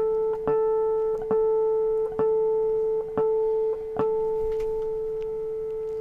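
Electric guitar playing a natural harmonic, the third harmonic on the D string, sounding the note A. It is plucked again and again, about once a second, and each pluck rings as a steady, almost pure sine-like tone. The last pluck, about four seconds in, rings on.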